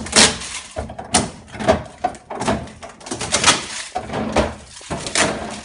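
Refrigerator door and plastic parts being handled: an irregular series of knocks and clatters, several a few seconds apart.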